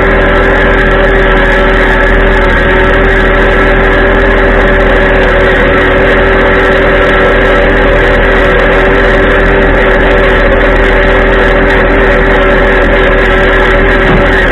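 Tractor engine running steadily at a constant speed, loud and close.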